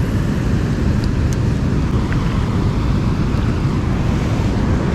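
Steady rushing of water pouring through a large dam spillway, a loud, even noise heaviest in the low end.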